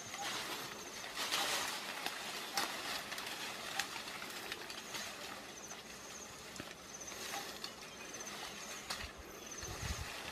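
Leaves and thin vines rustling as a hand pulls at dense foliage, with a few sharp twig snaps. A high chirping repeats every second or two in the background.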